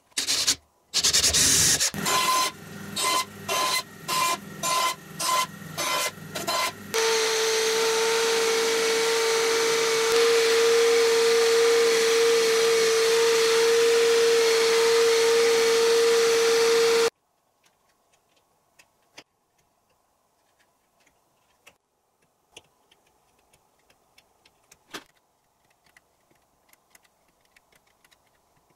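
An electric drill boring into a thin wooden board, run in a series of short bursts. From about seven seconds in, a belt sander runs steadily with a strong hum as a small wooden disc is sanded, then cuts off suddenly; after that, only faint ticks and scrapes of a needle file cutting small teeth into the edge of a wooden disc.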